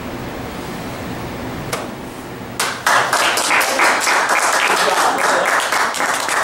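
Small audience applauding, the clapping breaking out about two and a half seconds in over a steady room hiss.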